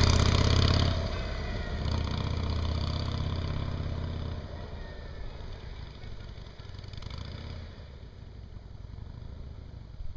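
Cruiser motorcycle carrying two people riding away. Its engine is loud for about the first second, then fades steadily over the next few seconds until it is barely heard.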